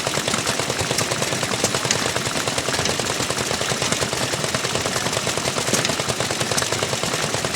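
Small gasoline engine of an antique gas-powered washing machine running steadily, its exhaust firing in a rapid, even string of sharp pops.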